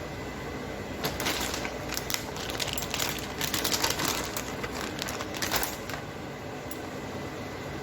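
Crinkling and crackling of packaging being handled, in a run of uneven bursts for about five seconds, over a steady background hum.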